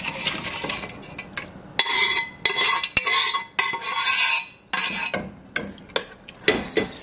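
Metal spoon scraping and clinking against a stainless steel bowl as meat is scooped out into a steel stockpot, with many sharp metal-on-metal knocks and a faint ring after several of them. Near the end the spoon stirs in the pot.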